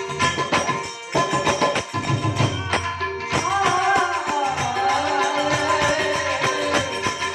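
Gujarati santvani devotional folk music: rhythmic hand percussion with jingling strokes, and a wavering melody line coming in about three seconds in.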